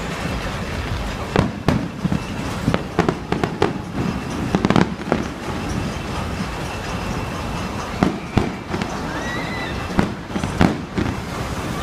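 Fireworks shells bursting overhead: about ten sharp bangs in uneven clusters, with steady outdoor rumble between them.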